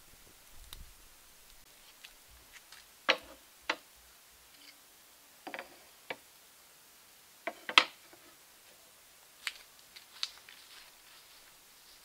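Wooden serving boards being set down one at a time on a wooden table: a series of separate sharp wooden knocks and clacks, spaced irregularly, the loudest a little past the middle.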